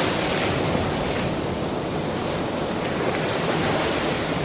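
Ocean surf: waves washing ashore in a continuous hiss, thinning about a second in and swelling again near the end.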